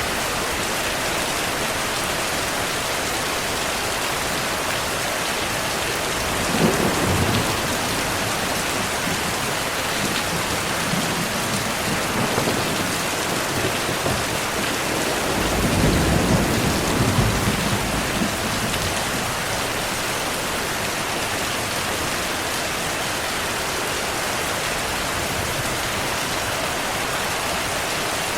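Steady rain hissing, with thunder rumbling twice: a short roll about a quarter of the way in and a longer one just past the middle.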